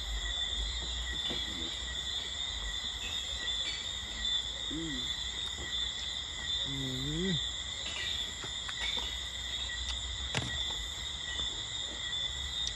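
Night insects trilling steadily at several high pitches over a low rumble, with a faint murmur of voices and a single sharp click about ten seconds in.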